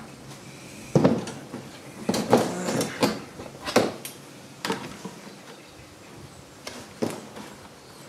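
Knocks and clatter of a metal paint tin, hand tools and a plastic bucket being handled and set down on a plastic folding table, the loudest knock about a second in, a quick cluster soon after, then a few single knocks.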